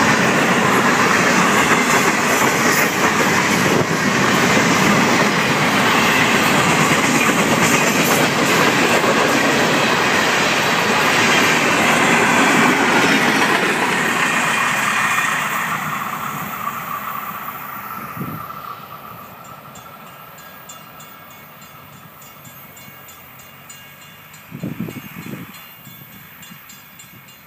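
Florida East Coast Railway freight cars rolling past close by, their wheels running loudly on the rails; the noise fades away over a few seconds past the middle as the end of the train recedes. A brief louder sound stands out near the end.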